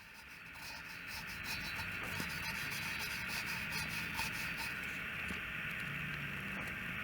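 A wire brush scrubbing carbon buildup out of a Chinese diesel heater's combustion chamber: a steady scratching that fades in over the first second.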